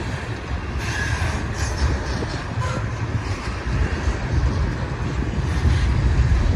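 Double-stack intermodal well cars of a freight train rolling past, a steady rumble of steel wheels on the rails.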